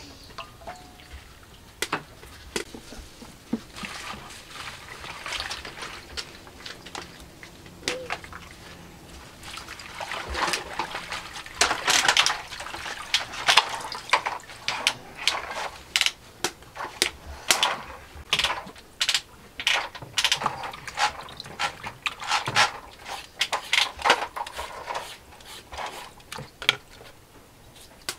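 Leafy greens being washed by hand in a plastic basin of water: repeated splashing and sloshing in irregular bursts, starting about ten seconds in.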